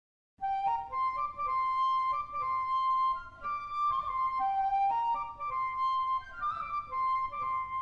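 Short instrumental outro tune: a single melody line of held notes, starting about half a second in.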